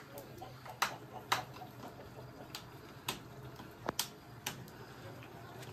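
Scattered sharp clicks or pops, about seven in a few seconds at irregular intervals, against a quiet background.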